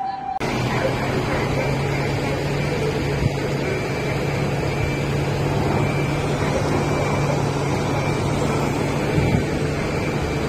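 Ambulance engine running as it pulls out of a fire station bay: a steady low hum under a wide hiss, with a faint high beep repeating about once a second.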